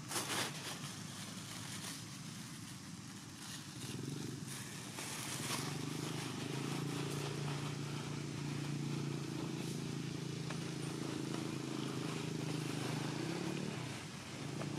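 An engine running steadily, a low even hum that comes in about four seconds in and stops shortly before the end.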